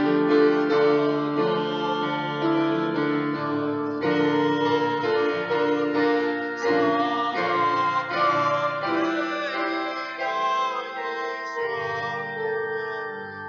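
A man singing a slow hymn while accompanying himself on a digital piano, held chords under a voice with a light vibrato.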